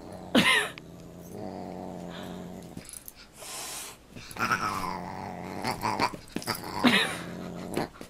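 Dog growling in long low rumbles while play-fighting with a cat, broken by two short, louder sharp cries, one about half a second in and one near the end.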